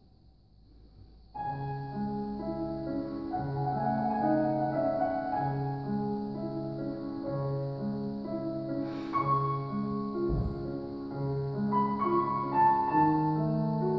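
Grand piano played solo: after a near-silent pause, playing starts about a second in and runs on as a flowing line over a steady, repeating lower figure. A faint click is heard around nine seconds in.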